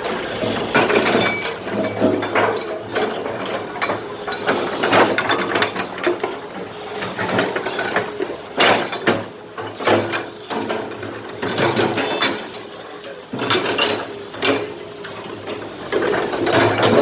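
Excavator digging broken concrete: the steel bucket scrapes and clanks irregularly against concrete chunks over the steady drone of the running engine, with the heaviest knocks about halfway through and near the end.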